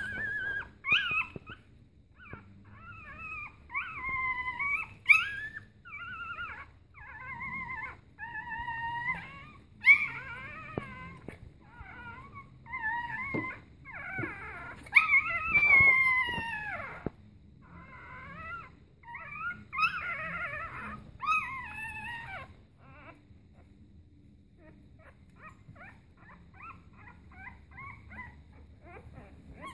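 Five-day-old newborn puppies crying in a string of high-pitched squeals and whines that bend up and down in pitch, then fainter short squeaks near the end.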